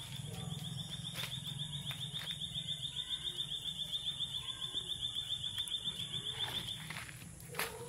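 A small creature's high, rapidly pulsing trill, held on one pitch for about seven seconds and stopping near the end, over a low steady hum.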